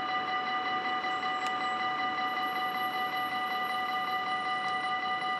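Dutch level-crossing warning bell ringing rapidly and continuously while the barriers are down, the signal that the crossing is closed for an approaching train.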